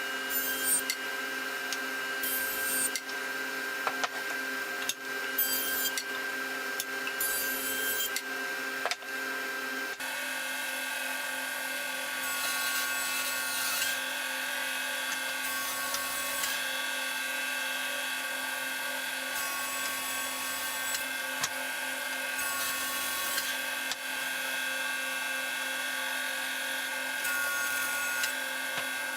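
Router running in a lathe jig with a steady motor whine, cutting into a turning hardwood blank to rough it round. The cutting comes in short rasping spells every couple of seconds, and the running note changes about ten seconds in.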